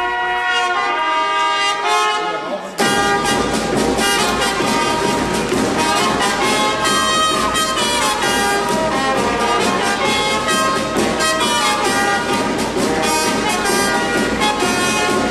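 Small fanfare corps of trumpets, horns and trombone playing live. It opens on held brass notes, then about three seconds in the full band comes in loudly with a drum beating time.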